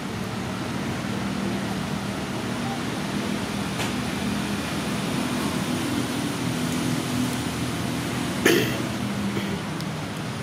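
Steady background hum with a low droning tone, and one short sharp sound about eight and a half seconds in.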